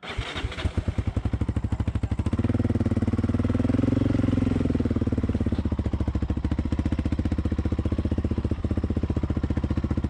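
ATV engine starting up and idling with a fast, even thumping beat, swelling in a light rev from about two seconds in before settling back to a steady idle.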